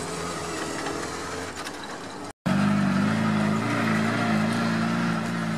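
LuAZ off-road vehicle's engine, a swapped-in 1.3-litre Daewoo Sens unit, running as the car drives over grass, first heard from inside the open cab. After a brief dropout about two and a half seconds in, the engine is louder and its pitch rises and falls with the throttle.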